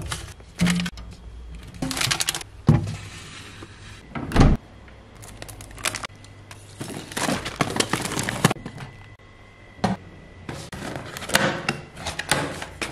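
Groceries being handled and put away on fridge and cupboard shelves: an irregular run of knocks, clunks and packaging rustles as packs are set down and shifted.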